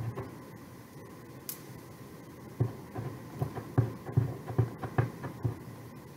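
A hand dabbing and tapping at a paper-and-chipboard craft layout and small metal tins on a tabletop: a run of soft, irregular low taps from about two and a half seconds in until near the end, over a faint room hum.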